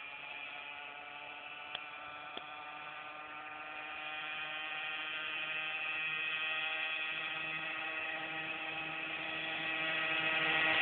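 Simson moped's single-cylinder two-stroke engine heard from afar, a steady droning tone slowly getting louder as it approaches. Two short clicks about two seconds in.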